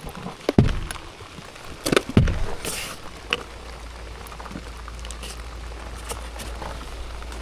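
Steady rain falling and pattering on surfaces, with a few knocks in the first two seconds or so and an even hiss of rain after that.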